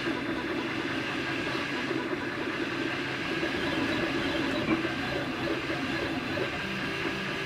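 3D printer running a print: the stepper motors whine and hum steadily as the extruder head moves around laying down layers of plastic.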